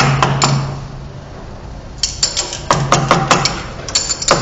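Metal clanks and rattles from a carpentry lathe's fittings being turned and clamped by hand. A burst of knocks comes at the start, then a quick run of clicks and knocks from about two seconds in.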